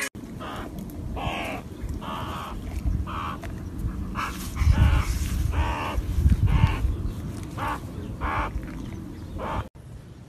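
Pet meerkat giving about a dozen short, harsh chirping calls in a row while it climbs over and grooms a dog, over a low rumbling noise that is loudest mid-way; the sound cuts off abruptly near the end.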